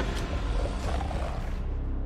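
Deep, rough animal roar sound effect with a heavy low rumble, standing in for the toy gorilla just named.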